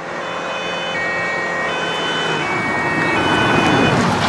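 Ambulance's two-tone siren (German 'tatü-tata' style): a high and a low tone alternate, each held under a second, growing louder as the vehicle approaches.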